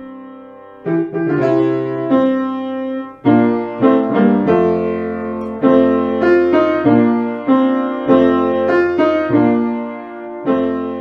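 Background piano music: a slow melody over chords, starting about a second in after a short quiet moment.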